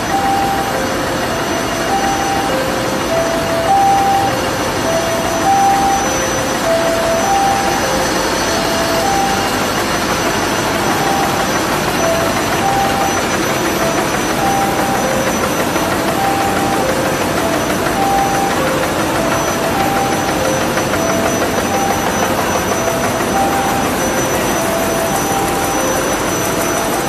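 Full-servo baby diaper making machine running steadily at production speed, a dense even mechanical noise. Over it, short beeps at three different pitches repeat in a cycle every couple of seconds.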